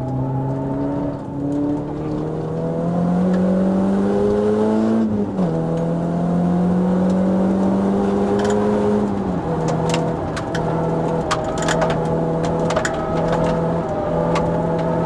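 Renault Clio RS's 2.0-litre four-cylinder engine heard from inside the cabin on track: it climbs in revs, drops with a gear change about five seconds in, holds steady revs, then drops again a little after halfway and runs on steadily. Scattered sharp clicks come in during the second half.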